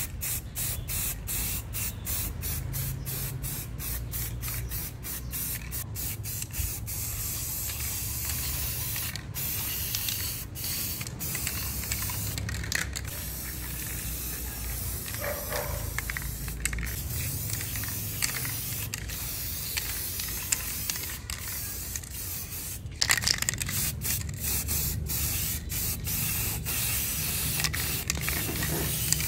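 Aerosol spray paint can hissing in repeated passes, broken by many brief stops between strokes. There is a short pause about three-quarters of the way through before spraying resumes louder.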